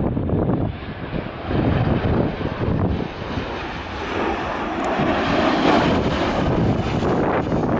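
Aircraft engine noise, growing brighter and louder toward the middle, mixed with strong gusts of wind buffeting the microphone.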